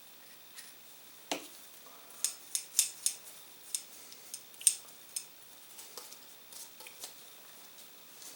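Light metallic clicks and taps from a rifle suppressor being handled and cleaned, a dozen or so sharp ticks, most of them in the middle of the stretch.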